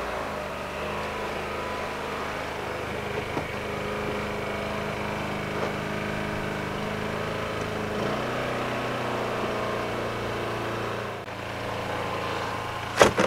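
Small generator engine running steadily, its hum shifting to a lower pitch about eight seconds in and dipping briefly near eleven seconds. A sharp knock sounds near the end.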